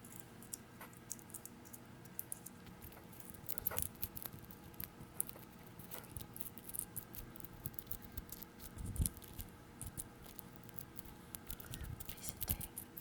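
Many light, irregular clicks and taps, with a soft low thump about two-thirds of the way through and another near the end.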